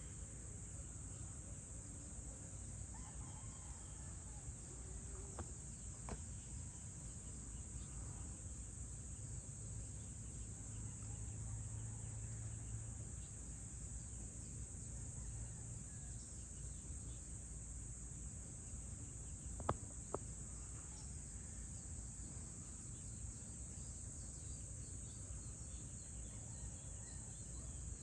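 Steady high-pitched drone of an insect chorus over a low rumble of outdoor ambience, with two sharp clicks about twenty seconds in.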